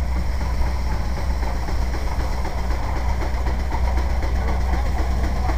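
Case steam traction engine running belted to a threshing machine at work, a steady low mechanical rumble of the engine, drive belt and thresher together.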